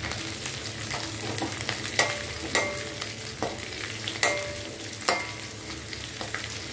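Chopped ginger, garlic and green chillies sizzling in hot oil in a metal kadai, while a metal spoon stirs them, scraping and knocking against the pan with several short ringing clinks.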